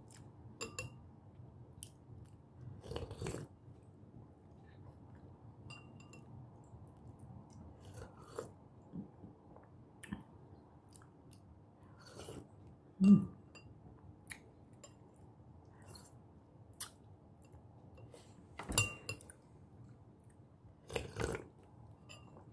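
Close-up mukbang eating sounds: a person chewing salmon and rice in sour broth, with soft wet mouth clicks and smacks scattered throughout. About halfway through, a spoonful of broth is sipped, the loudest sound.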